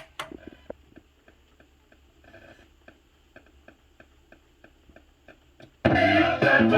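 Newcomb RT-28B record player playing a 45 rpm record: a sharp click as it starts, then faint regular ticks about three times a second from the groove. Near the end, choir music starts loudly from the record through the player's speaker.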